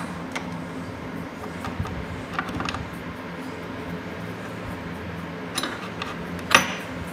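Pipe wrench parts clicking and clinking against each other and on a wooden table as they are handled, with the sharpest metal clink about six and a half seconds in, over a steady low hum.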